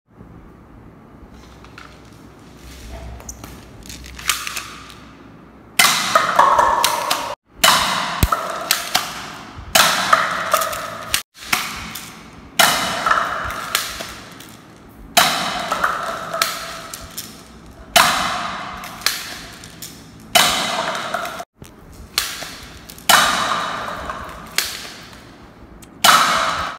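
305 toy airsoft gun fired repeatedly at a stack of paper cups, about a dozen shots a second or two apart. Each shot is a sharp crack with a ringing ping that dies away, mixed with the clatter of cups and pellets on a tiled floor. A few fainter clicks and knocks come in the first few seconds.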